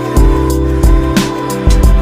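Background music with a steady beat: sustained instrumental tones over kick drum and percussion hits.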